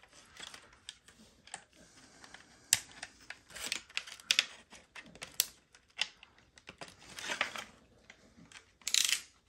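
Plastic light cover and trim clicking and scraping as it is pried and worked free of its adhesive by hand: scattered sharp clicks with a few short scratchy rasps, the loudest near the end.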